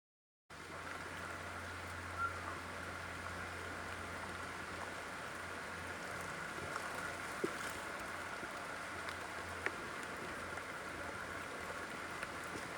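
Steady rain falling on rainforest foliage, cutting in abruptly about half a second in, with a few louder single drops ticking close by.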